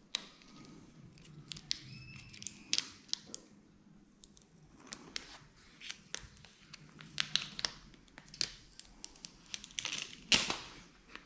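Paper stencil backing being peeled off and the stencil and masking paper being handled and pressed down by hand: irregular crackling and crinkling with many short, sharp ticks, and a louder rustle near the end.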